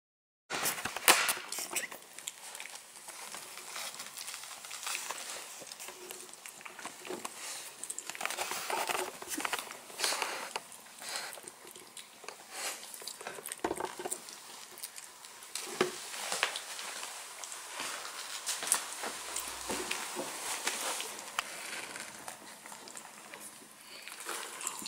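A Tibetan terrier mother licking her newborn puppies: irregular wet licking and smacking clicks.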